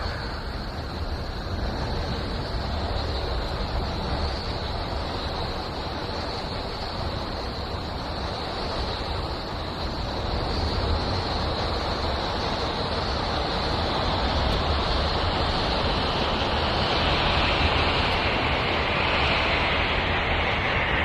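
Steady rushing noise with a low rumble underneath and a hissing band on top, like wind or surf, growing a little louder and brighter after about ten seconds: an audio rendering presented as the sound of Uranus.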